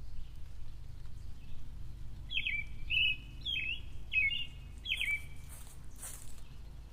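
Birds chirping: a run of short high chirps about two to five seconds in, over a low steady background rumble.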